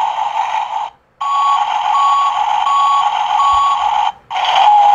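Tonka toy bulldozer's push-button electronic sound effects, played through its small speaker: a recorded heavy-machine engine sound that cuts off about a second in. The engine sound then starts again with four evenly spaced reversing beeps, and cuts off again near the end.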